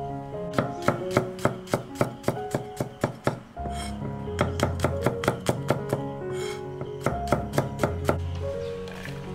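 A cleaver slicing peeled garlic cloves on a wooden chopping board: quick, even knocks of the blade on the board, about four a second, in three runs with short pauses between.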